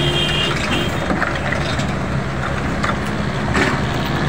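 Steady roadside traffic noise with vehicle engines running. A brief high tone sounds near the start, and a few light knocks come later.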